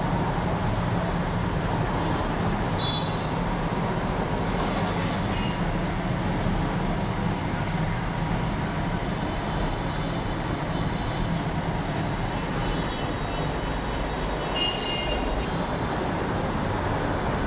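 Steady low rumble and hiss of background noise, with a few faint, brief high tones now and then.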